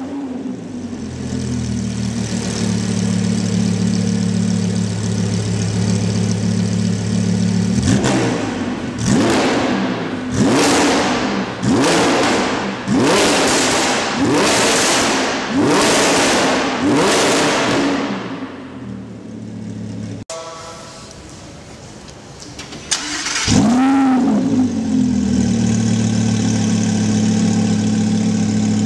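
Lamborghini Huracán LP610-4's V10 with an Fi Exhaust aftermarket exhaust, just fired up and settling into a fast, steady idle. It is then blipped about eight times in quick succession, each rev rising sharply and dropping back. It idles more quietly for a moment, then flares once more with a single rev and settles into a steady idle again.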